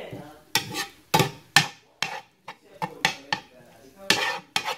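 Spatula knocking and scraping against a frying pan while scrambled eggs are stirred and broken up: irregular clacks, about two or three a second.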